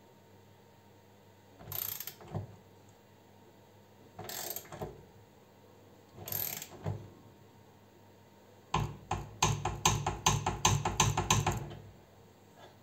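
HAZET torque wrench set to 80 Nm tightening an M14 bolt. Its ratchet clicks in three short strokes, then in a fast run of sharp clicks, about five a second, from about nine seconds in.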